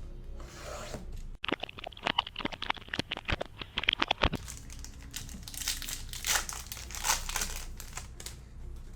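Plastic wrapping being torn and crinkled as a sealed blaster box of trading cards is opened: a quick run of sharp crackles, then softer crinkling a few seconds in.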